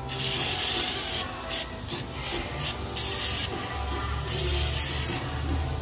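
Aerosol can of undercoating spraying in hissing bursts onto a lower control arm's tack-welded cam bolt: one long spray, four quick short squirts, then two longer sprays.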